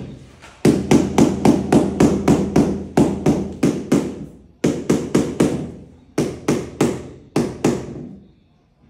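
Rapid hammering, about four sharp strikes a second: a long run of a dozen or more, then shorter runs of about four, four and two.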